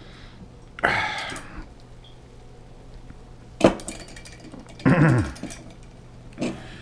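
A wine bottle being handled and worked open with some difficulty: a rustle about a second in, a sharp click a little past halfway, then a short sound falling in pitch, over a steady low hum.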